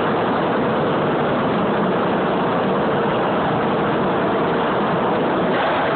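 Steady, loud machinery noise with a faint hum.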